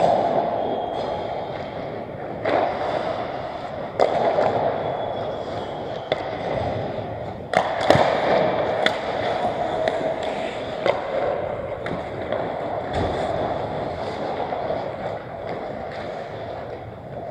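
Ice skates scraping and carving on the rink ice during hockey play, with several sharp clacks of sticks and puck scattered through it, the loudest pair about halfway through.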